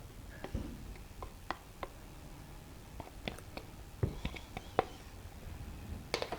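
Scattered light clicks and taps of kitchen work as two eggs are added to a mixing bowl of dry cake ingredients, with a cluster of quick taps a little past the middle.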